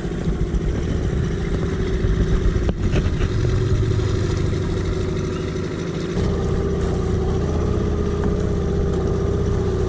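Outboard motor running steadily, pushing a small aluminium boat along under way. A single sharp click comes a little under three seconds in.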